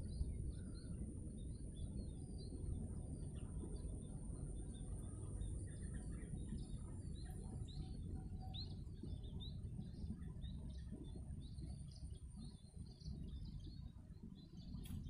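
Small birds chirping repeatedly in the paddy field, over a low rumble of wind on the microphone. A steady high whine runs underneath and stops about halfway through.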